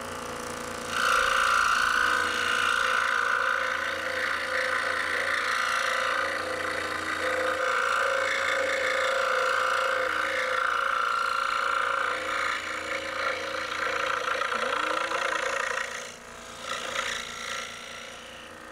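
DeWalt scroll saw running, its reciprocating blade cutting through a wooden board from about a second in. Near the end the cut stops and the saw runs on more quietly.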